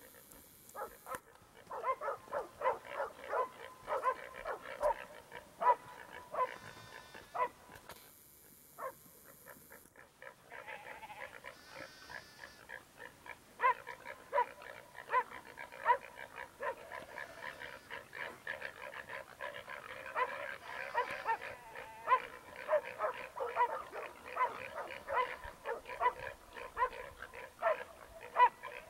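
Bail dogs barking over and over, two or three barks a second, as they hold a mob of small pigs at bay.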